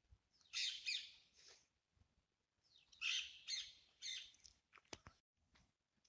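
Parakeets calling from a treetop: two bouts of shrill, rasping calls, each of several quick notes, the first about half a second in and the second about three seconds in. A sharp click comes near the end.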